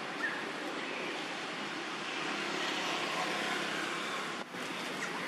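Steady rushing outdoor background noise, with one short high chirp just after the start and a momentary drop in level a little past four seconds.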